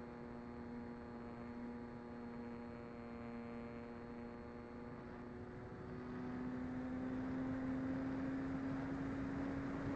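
Mini Talon RC plane's electric pusher motor and propeller humming steadily in flight, with wind rush, heard from on board. About six seconds in the motor speeds up: the hum steps higher in pitch and grows louder.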